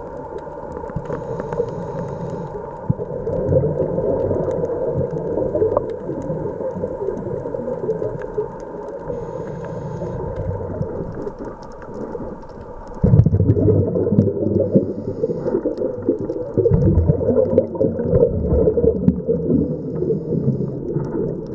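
Scuba diver's breathing heard underwater: short hisses through the regulator and a rough rumble of exhaled bubbles, which grows louder about thirteen seconds in.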